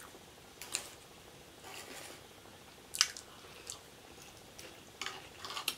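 A plastic fork clicking and scraping against a tray as loaded fries are picked up, with soft chewing between a few sharp clicks, a cluster of them near the end.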